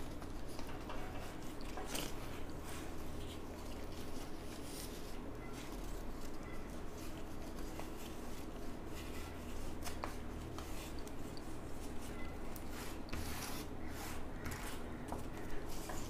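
Hands scooping and pressing loose cocopeat into a small plastic plant pot, giving soft scattered rustles and crackles over a low steady background hum.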